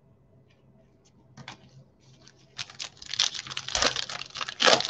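A foil trading-card pack crinkling and rustling as it is torn open and handled, starting about two and a half seconds in, with a couple of louder knocks near the end.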